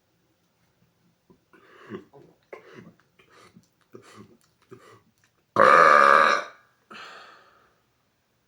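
A man's deliberately forced, loud burp lasting about a second, preceded by several short, quieter sounds as he works it up and followed by a fainter tail; a meter reads it at about 120 decibels.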